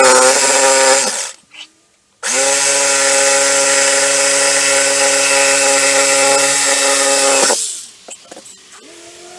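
A handheld electric power tool's motor running in two bursts: a short one of about a second, then, after a brief pause, a steady run of about five seconds at constant speed that winds down at the end.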